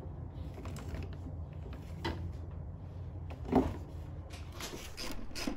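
Soap-lubed 8-gauge power cable being pulled through a rubber firewall grommet: a couple of soft handling knocks, then quick rubbing strokes, about three a second, near the end.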